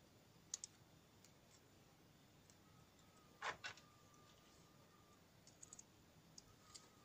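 Faint clicks of metal crocodile clips being handled and clipped onto small wires, with one louder double click and rattle midway. A faint thin steady tone comes and goes in between.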